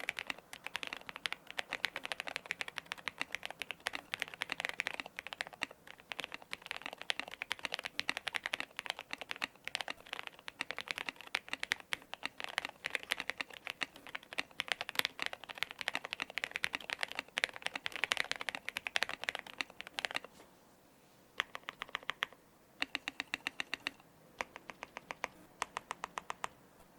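Zoom65 mechanical keyboard being typed on fast and continuously. It has factory-lubed JWK linear switches, PBT keycaps, a polycarbonate plate and foam and tape mods, and it gives a thocky keystroke sound. After about 20 seconds the typing breaks into short, quick runs of keystrokes with pauses between them.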